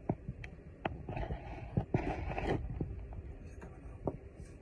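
Metal tin of ground black pepper being shaken over raw steak: two spells of rattling shakes, about a second and two seconds in, with scattered light clicks and taps.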